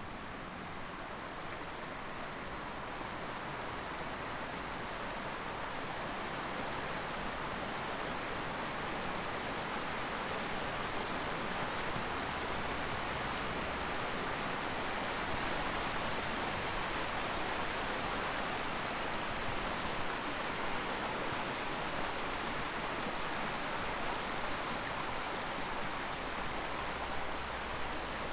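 Steady rushing of flowing water, growing louder over the first several seconds and then holding even.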